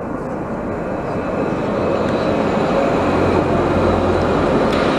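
Alstom Citadis light-rail tram drawing up and passing close by. Its wheels on the rails give a steady rumble that grows louder as it comes alongside, and a low hum joins in over the second half.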